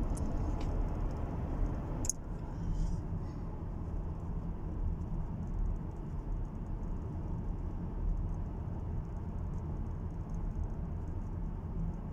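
Steady low road and engine rumble heard inside the cabin of a 2017 Lexus petrol car driving along a highway.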